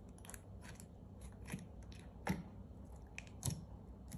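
Fingers poking and pressing soft white-glue slime in a small clear jar: faint, scattered sticky clicks and pops, with two louder clicks about two and three and a half seconds in.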